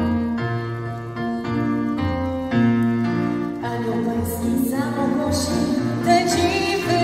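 A song with keyboard accompaniment: evenly paced piano-like chords over a steady bass line, and a woman's singing voice comes in about four seconds in.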